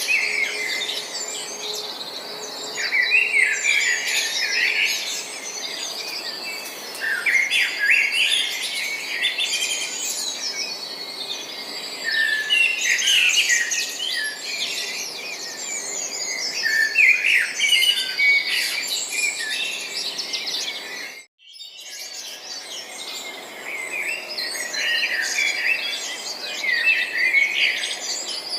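A chorus of small songbirds chirping and twittering together in busy clusters every few seconds. The sound cuts out completely for a moment about two-thirds of the way through.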